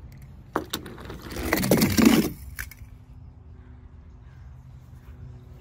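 Diecast toy car sliding down a plastic play slide: a few light clicks, then a scraping rush of about a second, loudest just before it stops.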